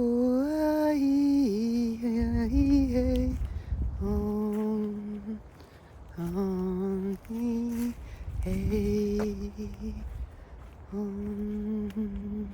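A woman's voice humming a slow wordless chant, holding long notes that step up and down in pitch, in about five phrases with short pauses between them.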